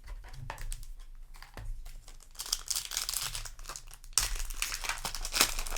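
Foil Yu-Gi-Oh! booster pack wrapper crinkling as it is handled and torn open, with dense crackling that grows louder about two and a half seconds in and is loudest from about four seconds in.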